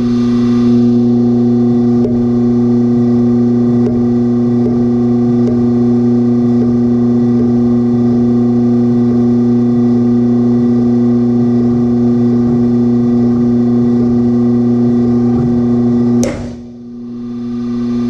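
Steady motor hum of a pull-testing rig loading a Climbing Innovations SAKA carabiner with its gate held open, with faint ticks roughly once a second. About sixteen seconds in, the carabiner breaks with a single sharp crack; the hum dips and then recovers.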